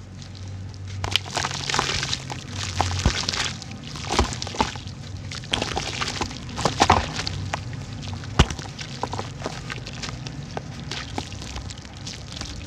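Cylinders of dried red dirt crumbling and cracking apart in water, with an irregular run of crackles and a few sharper knocks as chunks break off.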